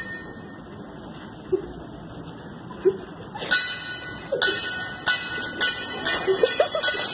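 A bell rung repeatedly: from about three and a half seconds in, sharp ringing strikes come roughly twice a second and quicken toward the end, over a steady background noise.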